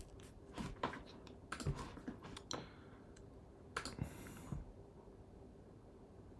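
Computer keyboard and mouse clicking: about ten irregular key taps and clicks over the first four seconds, with a short hiss about four seconds in.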